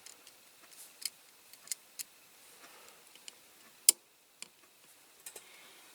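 Scattered small clicks and taps as a diecast model car's metal baseplate is handled and set into place on the body, with one sharper click about four seconds in.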